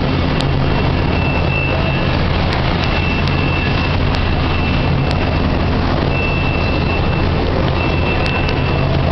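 Flux-cored wire arc welding: a steady, unbroken arc noise over a low hum, with a faint high tone coming and going.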